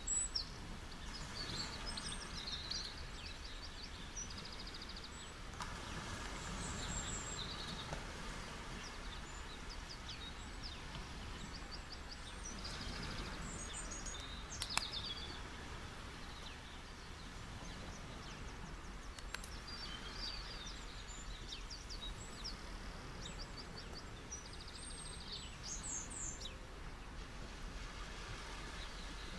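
Gentle beach waves washing steadily, swelling softly a few times, with many small birds chirping throughout. A single sharp click about halfway through.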